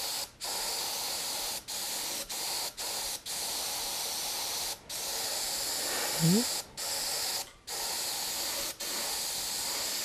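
Siphon-feed airbrush spraying paint through a stencil: a steady hiss of air and paint that stops for short moments about nine times as the trigger is let off and pressed again.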